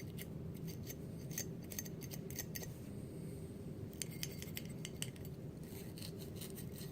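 Small cleaning brush scrubbing inside the steel bolt carrier of an AR-15 (5.56) bolt carrier group, where the firing pin goes, to clear carbon: quick scratchy clicks in several short spells with brief pauses.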